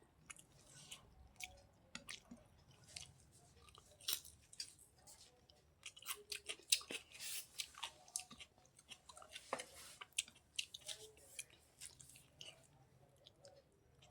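Close-miked chewing of food, with wet mouth smacks and many small irregular clicks.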